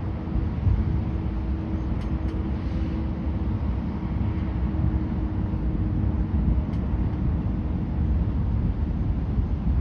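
Steady low rumble of distant city traffic, with wind buffeting the microphone.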